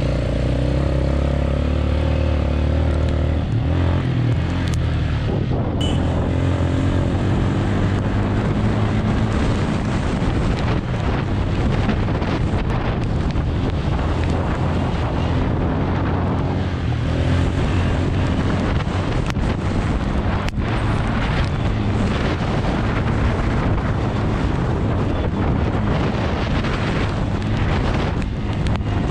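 Quad bike (ATV) engine running under way, its pitch rising and falling with the throttle, with wind noise on the microphone.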